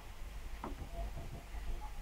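Screwdriver turning a screw into a plastic hot glue gun housing, with a faint click about two-thirds of a second in, over a low steady hum.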